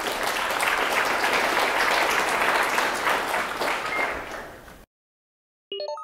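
Audience applauding, dense and steady, then cut off abruptly a little under five seconds in. Near the end comes a brief run of short tones, like a chime.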